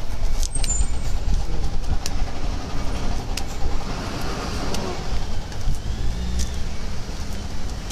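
Outdoor street noise: a heavy, steady low rumble with a few faint clicks.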